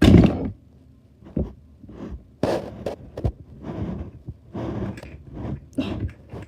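Small plastic toys being handled and set about: a louder thump at the start, then a run of light knocks and rustling.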